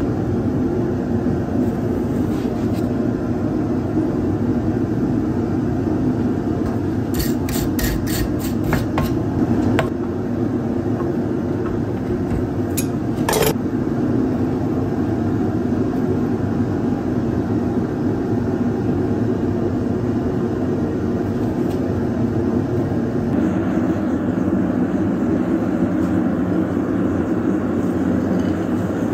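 Steady roar of a gas forge burner running. A quick run of light metallic clicks comes about seven seconds in, and one more click near thirteen seconds.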